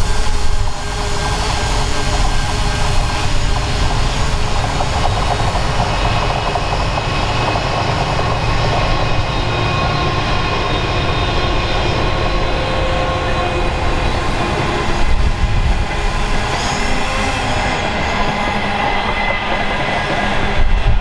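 Passenger train passing close by: the Ghan's two NR-class diesel-electric locomotives go by, then its stainless-steel passenger carriages roll past with continuous wheel-on-rail noise.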